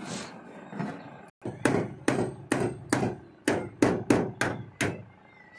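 Claw hammer striking lintel formwork of steel shuttering plates and timber. A run of about nine sharp blows comes at two to three a second, starting a second and a half in.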